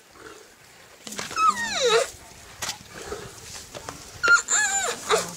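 Lions squabbling over a zebra kill: two loud, high-pitched calls that slide down in pitch, one about a second in and another near the end, over low growling.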